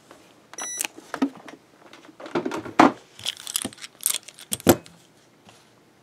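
Chrome-plated steel Darby handcuffs and their linking chain and swivel clinking and clanking as they are lifted and set down, in a string of sharp metallic knocks with a short beep about half a second in.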